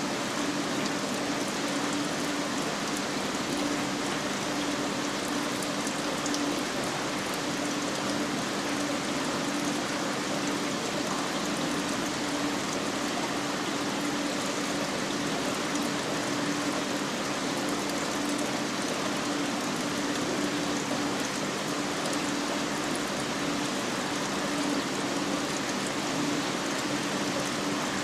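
Steady rush of water circulating in a marine aquarium, with a constant low hum from the tank's pump.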